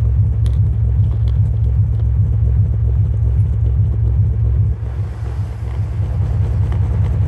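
Bass-only music, cut by a low-pass subwoofer filter, played loud through a bare subwoofer driver powered by a SOCL 504 power amplifier: deep, pulsing bass notes with almost nothing above them.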